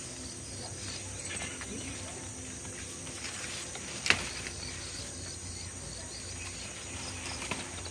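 Steady high-pitched chirring of crickets and other insects, with one sharp click about four seconds in and a few faint rustles.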